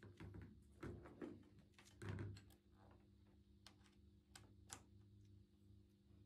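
Faint handling noise: rustling with a few soft knocks in the first couple of seconds, then a few sharp light clicks, from a player shifting in a chair with an alto saxophone.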